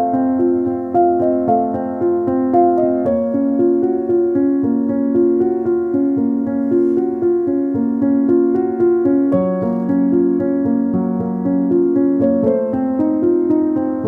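Background piano music: a slow melody over held chords that change every few seconds.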